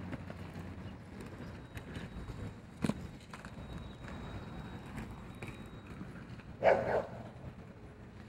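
Steady outdoor background noise with a sharp knock about three seconds in and a short, loud burst of sound, about half a second long, near the end.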